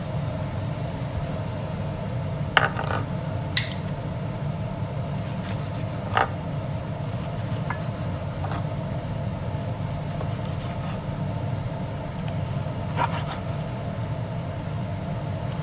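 A steady low hum of kitchen background noise, broken by a few light clicks and scrapes of cooking utensils, about 2.5, 3.5, 6 and 13 seconds in.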